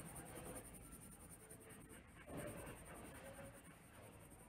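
Faint scratching of a colored pencil on paper, shading in a drawing.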